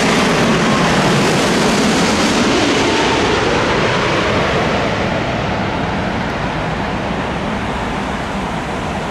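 Jet engines of a British Airways Boeing 787 Dreamliner passing low overhead on landing approach: a loud, steady roar that slowly fades as the airliner moves away towards the runway.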